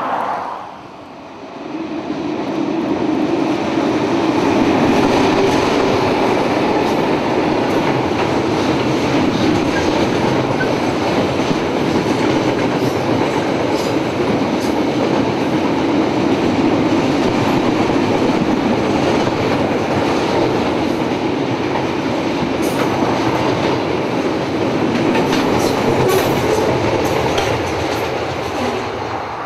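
Freight train hauled by two EMD diesel locomotives crossing a rail bridge. The steady rumble of locomotives and wagons rolling on the rails builds about two seconds in, with wheels clicking over the rail joints in the later part, and eases off near the end.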